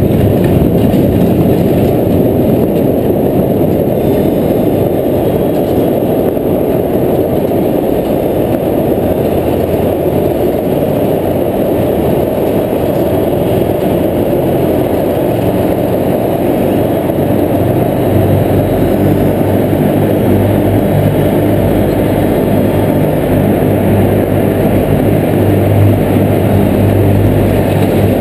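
Steel hull of a bulk carrier sliding down the launching ways, a loud steady rumble with a deeper hum that grows stronger in the second half.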